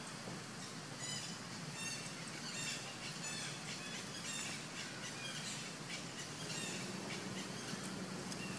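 A bird calling in a quick series of short, falling chirps over a steady background hiss; a faint low hum comes in near the end.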